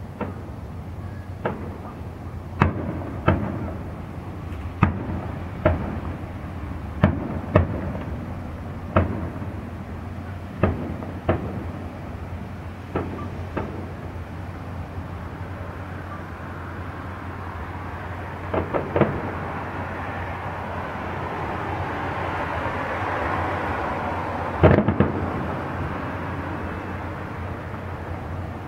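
Distant aerial firework shells bursting with sharp bangs at uneven intervals: about a dozen in the first half, a quick cluster of three later, then the loudest single bang near the end. A broad rushing noise swells and fades in the second half.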